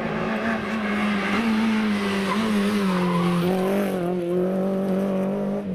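Rally car engine held at high, nearly steady revs, with tyre squeal and skidding noise over it.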